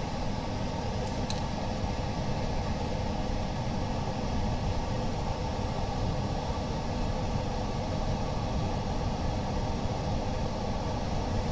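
Steady hum and rush of a running laminating machine, even in level throughout, with one faint click about a second in.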